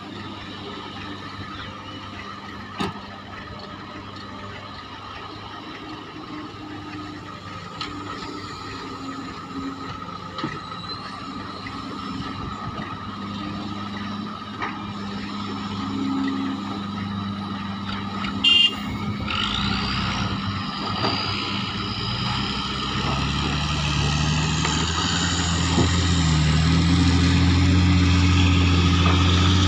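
Diesel engines of hydraulic excavators and dump trucks running steadily while ore is loaded, with a few sharp knocks. About two-thirds through there is a brief high beep, then an engine revs up and the engine noise grows louder to the end.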